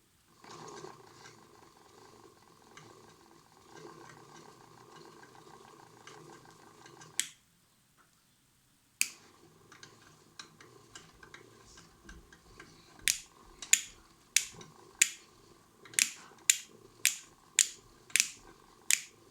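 Toy washing machine's small electric motor running with a steady hum, cut off with a click about seven seconds in and restarted with a click about two seconds later. Near the end, a string of sharp clicks, about two a second, over the running motor.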